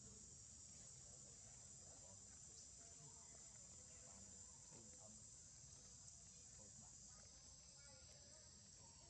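Faint, steady high-pitched insect chorus.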